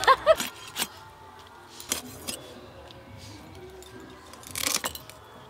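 Scattered clicks and scrapes of small hilsa fish being cut and scaled on a boti blade, with a brief burst of scraping near the end, over faint background music.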